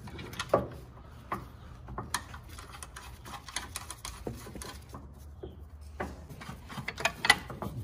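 Scattered, irregular light metallic clicks and taps from hand tools and suspension parts as a sway bar end link is fitted, with a faint steady low hum underneath.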